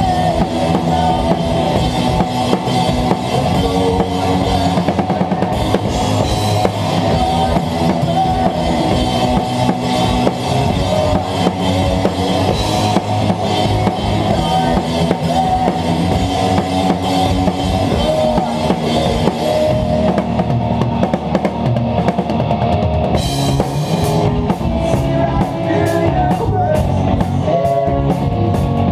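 Live rock band playing, with a drum kit up front: kick drum, snare, toms and crashing cymbals over sustained guitar and bass. About two-thirds of the way through the cymbal wash and kick drop back for a few seconds, then hard, sharp hits come back in.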